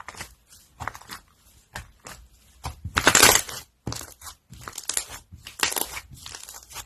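Crunchy slime being squeezed and pressed, giving bursts of crackling and popping, the longest and loudest about three seconds in and another shortly before the end.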